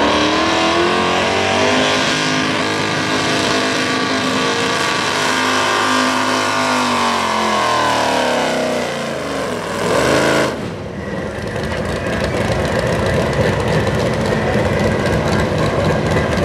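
Hot rod V8 pulling tractor on a Case chassis running at full throttle under load as it drags the sled. Its engine note sags steadily lower over several seconds as it bogs down, flares briefly about ten seconds in, then drops to a rougher, lower running sound as the pull ends.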